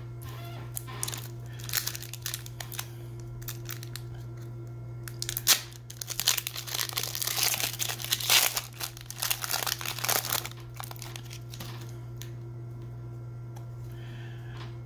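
Foil trading-card pack being torn open and crinkled by hand: a few light handling clicks, a sharp tear about five seconds in, then several seconds of dense crinkling before it stops.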